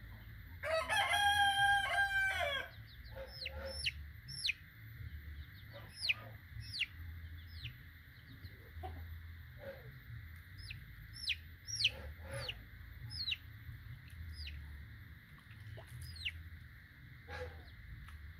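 A rooster crows once, loud and about two seconds long, near the start. Throughout, young Bangkok chicks peep with short, high, falling calls, with a few lower clucks among them.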